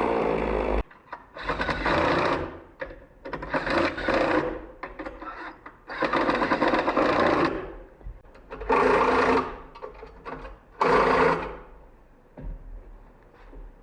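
Chainsaw engine running, cut off abruptly under a second in; then five separate bursts of rough noise, each about a second long, with quiet gaps between.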